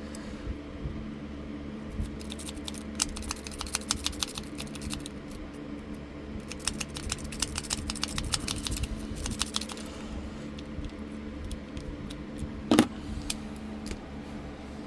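Steel lock pick working the pins inside a lock: two runs of quick, light metallic clicking, then one sharp, louder metal click a little before the end.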